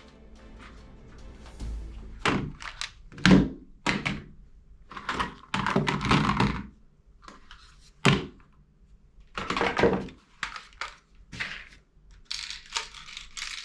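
Irregular knocks and clacks of toy guns being handled, with a couple of longer rattling scrapes partway through.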